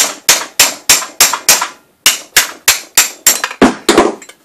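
Hammer blows on a long rod set in the drive sleeve socket of a Shopsmith Mark V headstock, driving the drive sleeve out. The sharp strikes come steadily about three a second, each ringing briefly, with a short pause about two seconds in.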